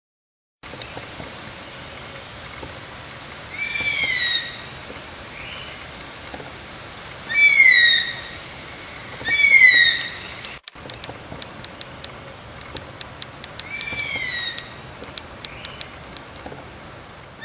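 Nature ambience: a steady high-pitched insect drone, with a bird giving a short arched call four times, the middle two loudest. Light rapid clicks run under the drone in the second half.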